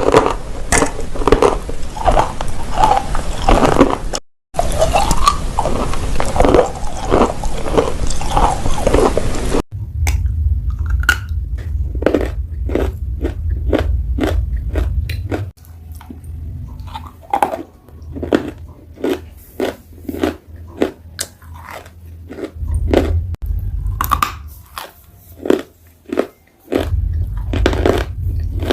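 Dried clay being bitten and chewed, crunching loudly at close range. A fast, dense run of crunches gives way about ten seconds in to slower, separate crunches over a low hum, with abrupt cuts between spliced clips.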